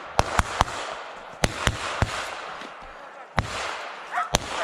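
Rifles firing single shots at an irregular pace, about eight shots in a few seconds, each with an echoing tail through the forest.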